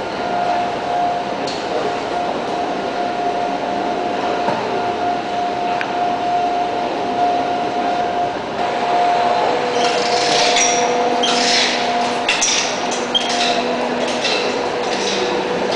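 Echoing background noise of a station's pedestrian underpass: a steady hum with a held tone. From about ten seconds in it is joined by a spell of sharp, high-pitched clatter and squeaks.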